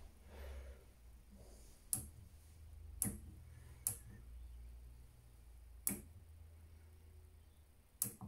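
Program selector dial on a Haier HWF85BW1 front-loading washing machine clicking as it is turned from one wash program to the next: five sharp, separate clicks at uneven intervals.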